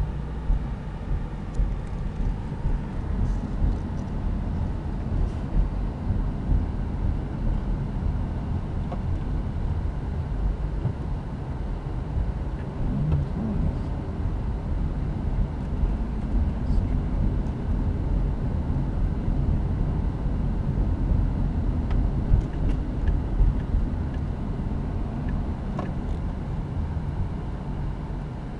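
A car driving on a city street, heard from inside the cabin: a steady low road-and-engine rumble, with a few faint clicks now and then.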